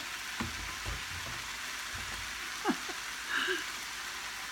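Hamburger meat sizzling in a frying pan, a steady crackling hiss. A few dull thumps come in the first two seconds, and a single sharp knock about two and a half seconds in.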